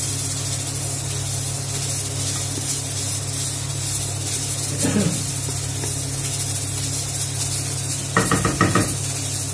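Chopped onions and garlic sizzling in oil in a pot, stirred with a wooden spoon, with a steady low hum underneath. Near the end, a short run of knocks as the spoon scrapes and taps against the pot.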